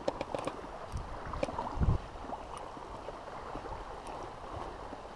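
Shallow water lapping and trickling with a light breeze, a few small clicks in the first second and a half, and a brief low thump about two seconds in.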